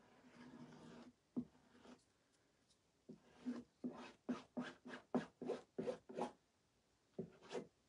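Fingertips rubbing over a silkscreen transfer laid on a burlap board: a soft rub in the first second, then a run of about ten quick scrubbing strokes, about three a second, and two more near the end.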